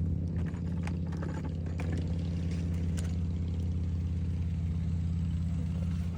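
A car engine idling steadily, with a few faint knocks and clatters over it.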